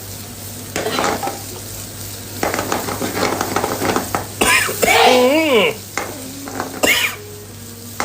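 Beef in sambal sizzling in a frying pan as a spatula stirs and scrapes it. A brief wavering pitched sound comes about five seconds in.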